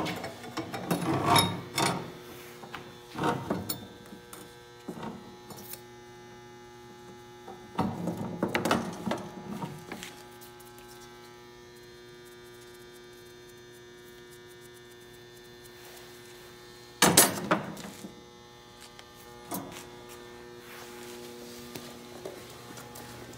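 Steady electrical hum in the workshop, with intermittent clanks and rattles of metal tools and parts being handled. The loudest is a single sharp clank about 17 seconds in.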